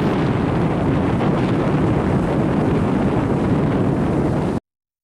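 Wind buffeting the microphone over steady surf, cutting off abruptly near the end.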